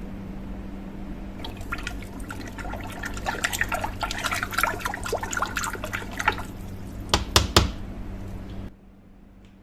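Water splashing and dripping over a steady low hum, with three sharp knocks near the end before the hum cuts off suddenly.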